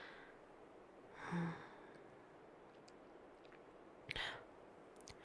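A woman's soft voiced sigh about a second in, then a short breathy sound near the end, over faint room tone.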